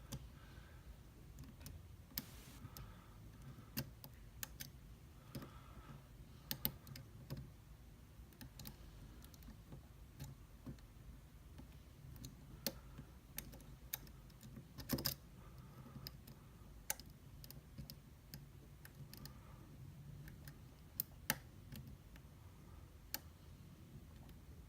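Faint, irregular small clicks and scrapes of lock picks working the pins inside an Abus D6 dimple euro cylinder, with a few sharper clicks standing out, the loudest about fifteen seconds in.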